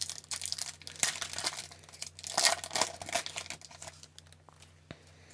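Plastic hockey card pack wrapper crinkling and tearing as it is handled and opened, crackling for about four seconds and then dying down.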